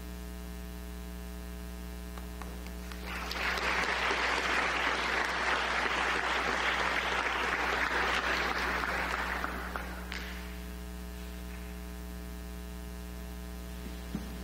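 Church congregation applauding for about seven seconds, starting about three seconds in, swelling and then dying away. A steady mains hum sits under the applause throughout.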